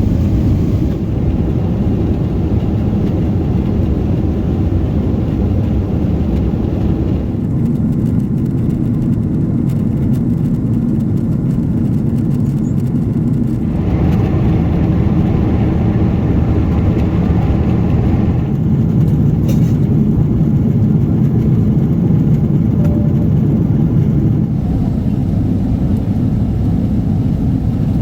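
Steady low rumble of cabin noise in an Emirates Boeing 777-300ER, from its GE90 engines and airflow. The tone shifts slightly a few times.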